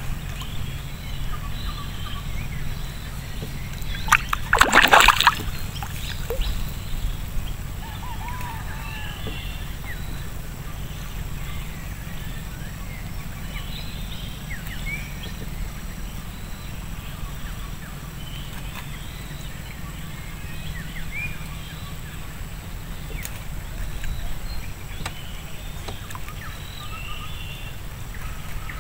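Water sloshing and lapping against a small wooden boat over a steady low rumble, with scattered short bird calls. About five seconds in there is a brief loud burst of noise.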